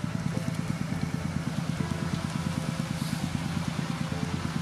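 A small engine running steadily at idle, a fast, even chugging.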